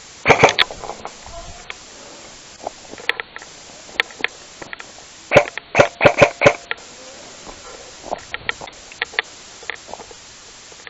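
Airsoft guns firing in short volleys: a few quick shots just after the start and a run of about six shots around five to six and a half seconds in, with single shots in between.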